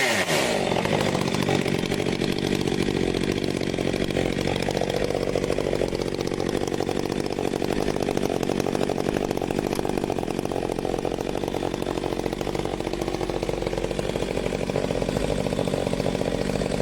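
Stihl MS 462 C two-stroke chainsaw running: the revs drop back at the start, it then runs steadily, and it shuts off abruptly at the end.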